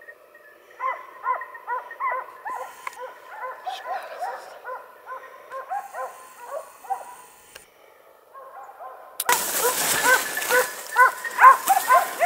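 A pack of hunting hounds giving tongue, several dogs barking in a quick, uneven run of barks. About nine seconds in the barking turns louder and closer, over a loud rustling of brush.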